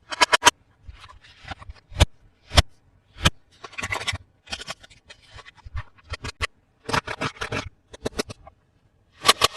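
Toy packaging and plastic toy parts being handled: a run of sharp clicks and taps, several of them loud, mixed with short stretches of scraping and rustling.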